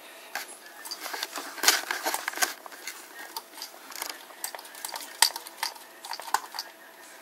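Thin metal cans of a homemade tin-can Stirling engine clinking and tapping as they are handled and adjusted by hand: irregular sharp clicks, loudest about two seconds and five seconds in.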